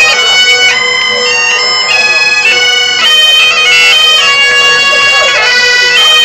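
Two Great Highland bagpipes playing a tune together: the chanters step through a quick melody over a steady, unbroken drone.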